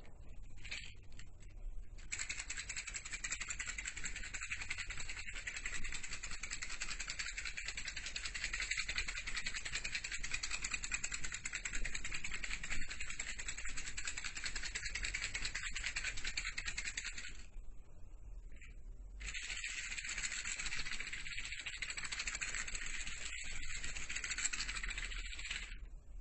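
A dense, steady rattling, like a shaker being shaken, that breaks off for about two seconds in the middle and then resumes.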